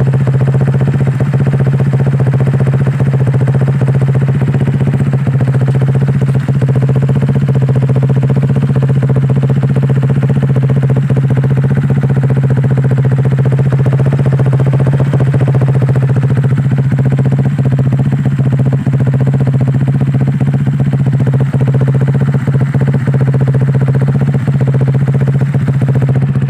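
Honda Click 150i scooter's single-cylinder engine idling steadily through an aftermarket SC Project exhaust, a loud, even drone with no revving.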